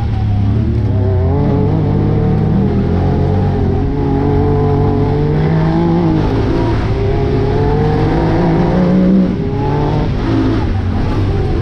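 Side-by-side UTV engine driving on a trail, revving and easing off so its pitch wavers up and down. It climbs to a peak a little after nine seconds, then drops suddenly as the throttle comes off.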